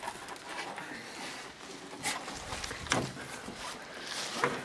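Three short handling knocks and scuffs, spaced about a second apart, over a steady outdoor hiss as a Canot Grand-Mère canoe is hoisted and settled onto a portager's shoulders.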